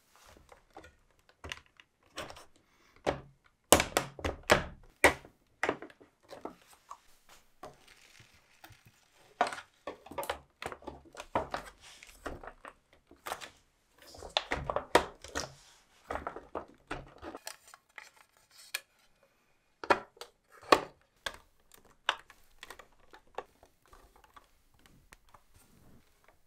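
Hard plastic parts of a scale-model BMW boxer engine kit clicking, tapping and knocking as they are handled, snapped together and set down on a table, in irregular clicks with some quick clusters.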